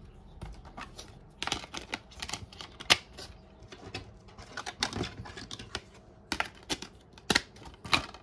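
Plastic Blu-ray case being handled: irregular sharp clicks and snaps as the case is opened, the disc is pressed onto its centre hub and the case is shut. The loudest snap comes about three seconds in.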